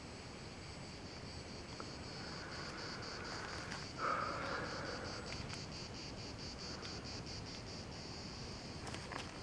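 Insects chirping in a fast, even pulse of about five beats a second. About four seconds in, a louder rushing swell rises briefly over them, and there are a few faint clicks near the end.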